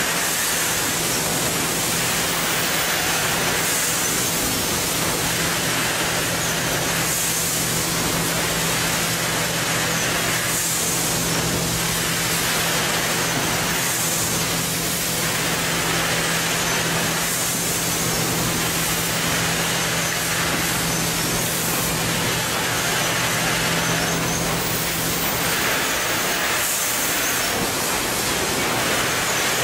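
Bag-packing line machinery running: a steady loud mechanical hiss with a low motor hum underneath, and a higher hiss that swells about every three seconds. The hum stops near the end.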